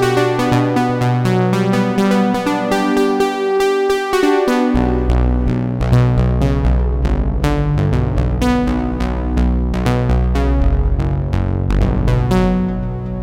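Sequential Prophet Rev2 analog polyphonic synthesizer playing a keyboard-like patch in fast, repeated notes and chords. About five seconds in, a deep bass layer joins underneath.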